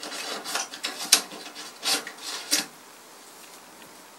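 A thin wire being twisted and pulled out through the wooden side panel of an old chest, scraping against the wood in a string of short rasps that stop after about two and a half seconds.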